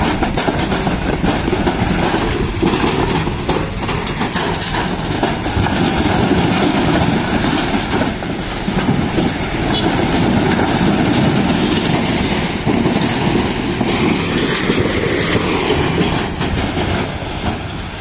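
Tractor diesel engine running hard under a heavy load, loud and steady, with a dense rattle of small clicks over it.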